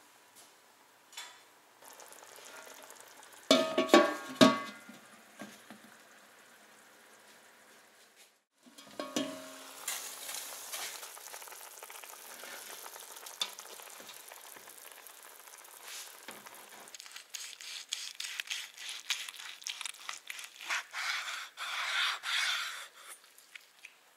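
Rolled turkey roast and vegetables sizzling in a hot roasting pan, with a few loud ringing metal clanks about four seconds in. After a short break the sizzling comes back as a steady hiss, and crackling spatter builds over the last several seconds.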